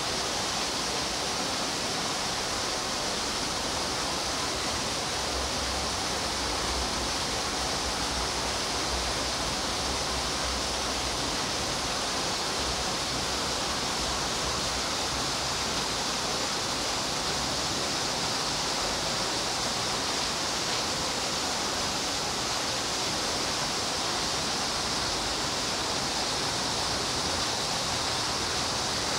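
A steady, even rushing noise with no breaks, brightest in the upper range, with a faint low rumble underneath for a few seconds near the start.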